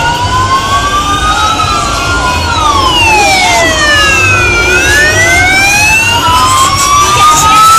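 Several sirens wailing at once, their slow rising and falling tones overlapping and crossing, over a low rumble of vehicles.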